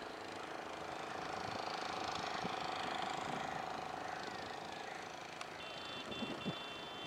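Steady hum of a distant engine over outdoor background noise, with a few soft knocks and a short run of high-pitched beeps near the end.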